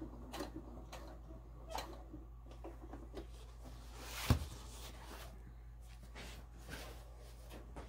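Handling noise at a sewing machine: scattered light clicks and one sharper click with a low knock about four seconds in, over a steady low hum; the machine is not heard stitching.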